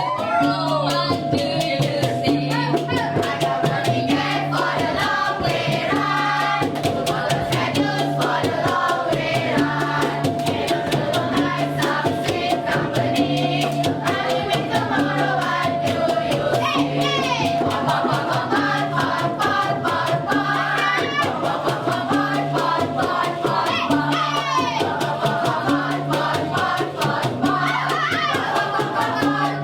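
A dikir barat troupe singing together over fast, even rattling percussion and a repeating bass line.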